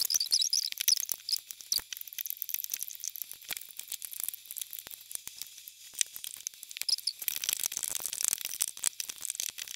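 Scattered small clicks and rustles of rubber bands and a plastic loom hook being handled, growing into a denser rustle about seven seconds in.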